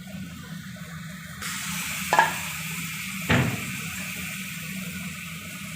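Chopped tomatoes going into a pan of fried onions, the pan sizzling with a hiss that grows brighter about a second and a half in. Two sharp knocks of a utensil on the pan come about two and three seconds in.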